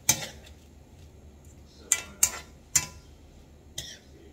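Metal ladle knocking against a frying pan as bean sprouts and carrots are stirred: five sharp clinks at uneven intervals, the first the loudest.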